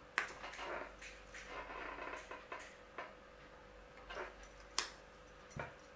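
Light handling clicks and rustles of a plastic Mod Podge bottle and a paintbrush, with a sharp snap about five seconds in as the bottle's flip-top cap is opened.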